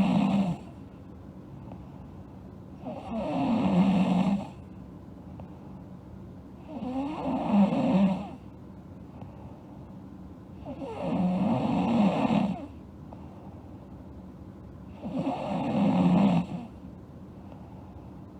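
A sleeping girl snoring in a slow, regular rhythm. The tail of one snore comes at the very start, then four full snores follow, one about every four seconds. Each snore lasts about a second and a half and swells in loudness before it stops.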